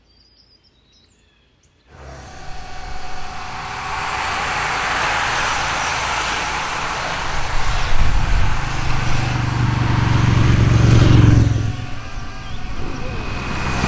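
A pack of road racing bicycles passing close by on asphalt: tyre hiss and drivetrain whirr, starting suddenly about two seconds in, with a low rumble that is loudest about eight to eleven seconds in and eases off near the end.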